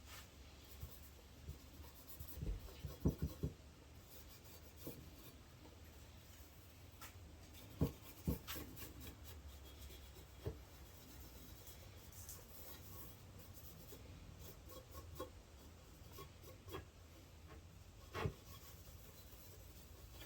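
Faint hand rubbing and scraping on a transmission case being cleaned with carburetor cleaner, with scattered small knocks; the loudest knocks come about three, eight and eighteen seconds in.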